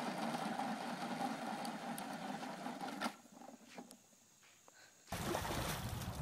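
Steady whine of a small electric motor, as from a child's battery-powered ride-on toy, cutting off about three seconds in. Near silence follows, then a steady low hiss of background noise starts about five seconds in.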